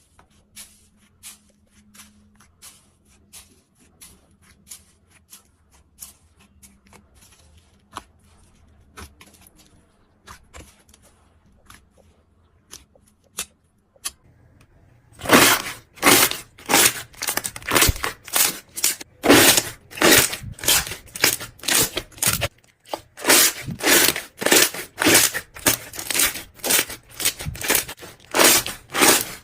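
Slime being squeezed and worked by hand: soft, sparse sticky clicks at first, then from about halfway a loud, quick run of crackling, crunching squishes, two or three a second.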